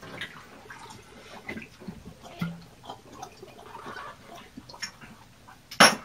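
Men gulping down shots from stacked shot glasses, with liquid trickling and dripping and small clinks of glass. A single loud knock near the end as the glass stack is set down on the bar.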